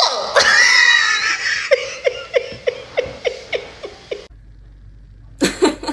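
A person making a made-up vocal sound effect: a drawn-out, wavering cry, then a run of short repeated pulses about three a second that stops suddenly. Another brief vocal burst comes near the end.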